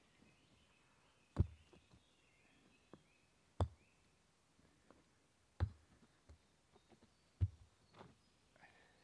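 Stones being set down one at a time into a fire ring on the forest floor: four sharp knocks about two seconds apart, with a few lighter taps between. Faint bird chirps in the background.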